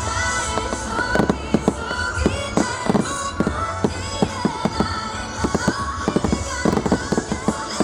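Fireworks shells bursting in rapid succession, many sharp bangs and crackles close together, over loud music playing along with the show.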